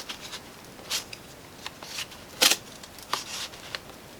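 Cardboard deck box being forced open by hand: a few short scraping, crackling handling sounds, the loudest about two and a half seconds in.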